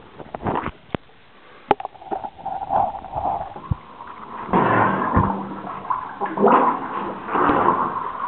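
Water splashing and gurgling close to the microphone as a caver moves through a flooded low-airspace sump, in repeated bursts from about halfway through, with a few sharp knocks in the first two seconds.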